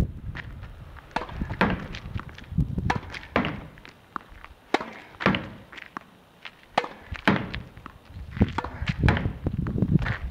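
A tennis ball hit hard against a practice rebound wall: a fast, uneven run of sharp pops from racket strikes, the ball smacking the wall and bouncing on the hard court, with shoe scuffs as the player moves. The run thins out and goes quieter for a stretch in the middle.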